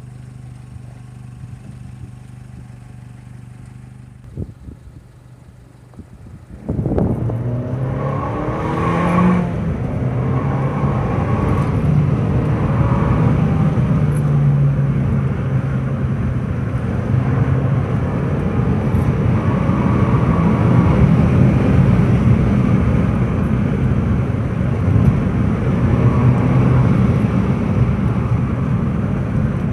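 Fiat 500 Abarth Esseesse's turbocharged 1.4 T-Jet engine running quietly at first, then about seven seconds in it suddenly gets louder and revs up, pulling under load with its pitch rising and falling as the car is driven.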